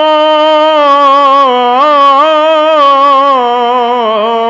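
A man's voice chanting Punjabi devotional verse, holding one long sung note that wavers in ornamental turns around the middle and dips slightly near the end.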